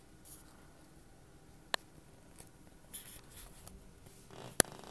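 A cat scrabbling and batting at a catnip toy mouse on carpet: faint scratchy rustling, with two sharp clicks, the louder one near the end.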